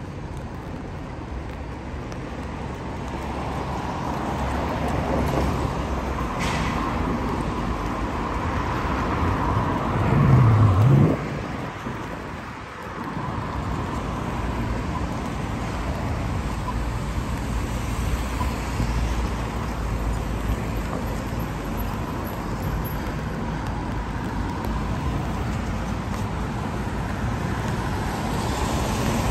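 Street traffic: a steady hiss of cars passing on wet roads. About ten seconds in, one vehicle passes close and loud, its low engine note briefly rising and falling.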